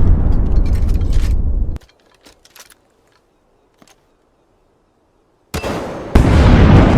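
A loud, deep rumbling noise with crackles cuts off suddenly about two seconds in. Near silence with a few faint clicks follows, then the loud rumble starts again near the end and jumps louder shortly after it returns.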